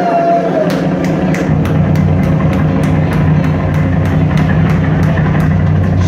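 Live rock band playing: an electric guitar holds a long bent lead note that slides away about half a second in, over drums with steady cymbal strikes about three a second and a heavy bass line that swells about a second and a half in.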